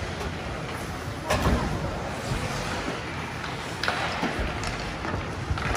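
Ice hockey game on the rink: a steady wash of noise broken by three sharp knocks of sticks, puck or boards, the loudest a little over a second in.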